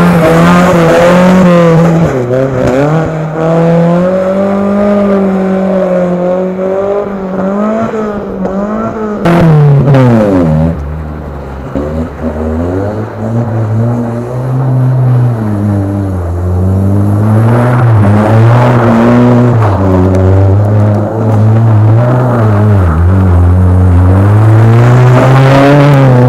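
Suzuki Vitara off-road buggy's engine revving hard as it is driven and drifted on gravel, the pitch climbing and dropping again and again, easing off for a moment about ten seconds in. Two sharp knocks sound just before that.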